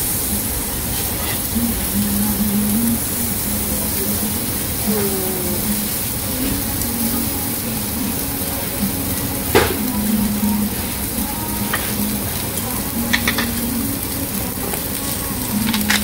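Raw beef slices sizzling on a hot grilling stone: a steady frying hiss. A sharp click, likely the metal tongs, about ten seconds in, and a few lighter clicks near the end.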